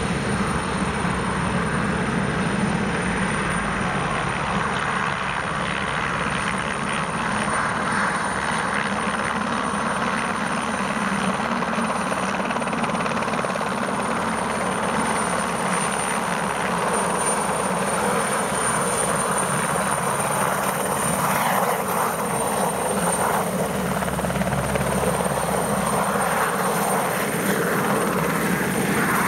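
Alouette II helicopter's gas-turbine engine and main rotor running as it lifts off and hovers low. The sound is steady, with a thin high turbine whine that grows stronger in the second half.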